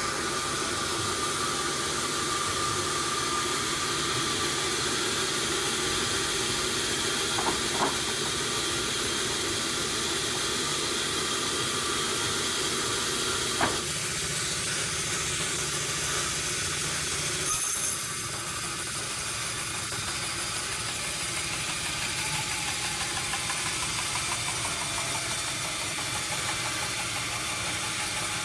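Sawmill machinery running steadily, an engine-driven saw with a hissing wash of noise. A couple of short clicks come about 7 and 14 seconds in, and the sound drops a little and changes character about 18 seconds in.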